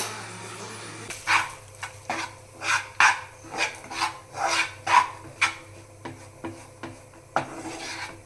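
A kitchen utensil stirring and scraping in a pan or bowl in regular strokes, about two a second, from about a second in, then a few weaker strokes near the end.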